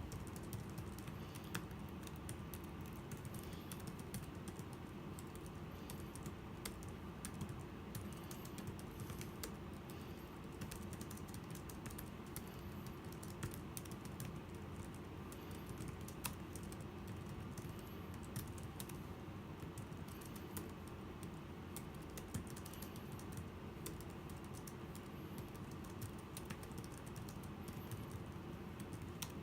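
Typing on a Logitech iK1200 keyboard for the 12.9-inch iPad Pro: a continuous, irregular run of soft key clicks.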